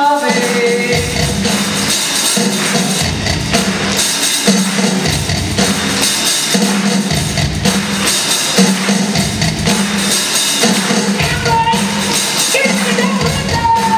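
Live funk band playing with a bass line pulsing about once a second and bright jingling percussion on top; a sustained melody note comes in near the end.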